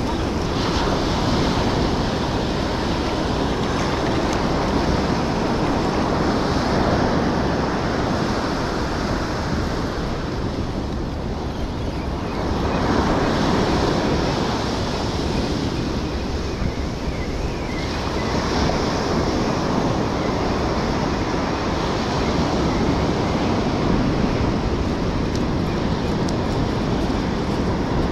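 Ocean surf breaking and washing up a sandy beach, a steady rush that swells and eases every several seconds as waves come in, with wind rumbling on the microphone.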